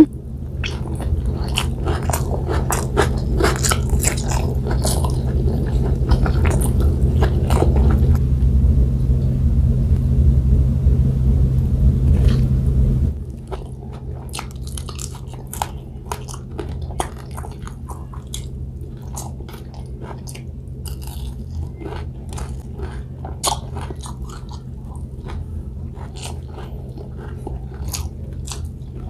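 Close-up chewing, biting and wet mouth clicks of someone eating rice and fried milkfish by hand, with crunchy bites here and there. A loud low steady hum underlies the first half and cuts off suddenly a little before the middle.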